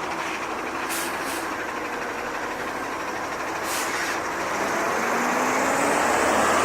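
Garbage truck driving past, its engine running, getting louder in the second half, with a few short hisses around one and four seconds in.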